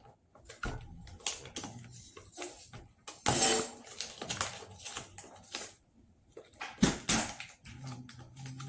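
Clear plastic clamshell food container being handled and pressed at the lid, crackling and clicking. The loudest crackles come a little past a third of the way in and again near the end.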